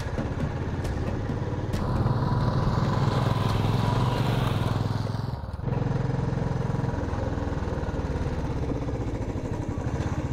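Royal Enfield motorcycle engine running steadily while riding, heard up close from a camera on the handlebars. It gets louder, with more rushing hiss, between about two and five seconds in, and dips briefly about five and a half seconds in.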